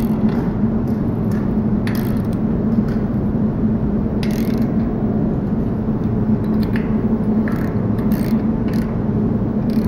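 Ratchet wrench clicking in short runs as bolts are tightened, over a steady low hum.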